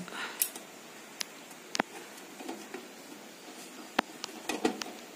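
Scattered small clicks and scrapes of a speaker cable being handled and fitted into the terminals on the back of an amplifier, with a cluster of clicks near the end.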